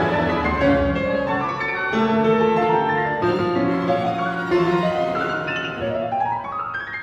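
Grand piano and symphony orchestra playing a late-Romantic piano-and-orchestra rhapsody: the piano over held string notes, with a fast rising run near the end.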